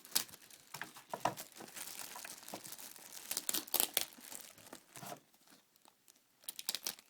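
Wrapping being crumpled and torn off a boxed diecast model by hand: irregular crinkling and rustling with sharp crackles, easing off for a moment near the end.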